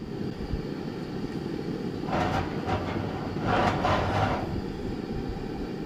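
Coleman two-burner propane camp stove just lit and burning: a steady low rush from the burner, with two louder hissing whooshes about two and three and a half seconds in.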